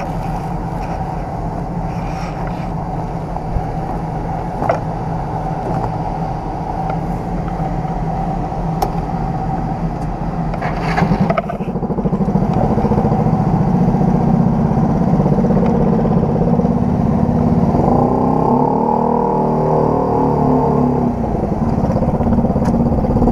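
Yamaha Cygnus 125 cc scooter engine idling steadily, then getting louder as it pulls away about halfway through, with a brief clatter just before. Near the end its pitch rises and falls as it accelerates.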